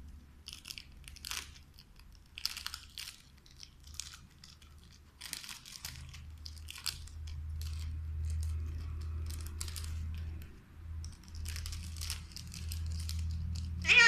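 Alexandrine parakeet biting and tearing at a crinkly plastic snack wrapper: irregular crackling and rustling of the plastic in its beak. A steady low hum comes in under it from about halfway through.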